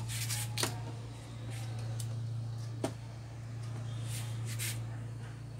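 LCD glass panel being lifted by hand off a TV's backlight assembly: a few short rustles and taps, with one sharp click about halfway through, over a steady low hum.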